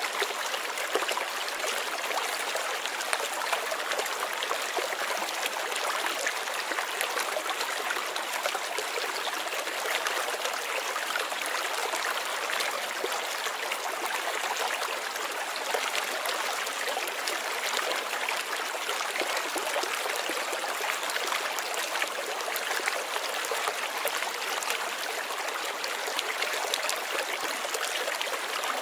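Running water of a stream, a steady rush with fine trickling splashes and no change in level.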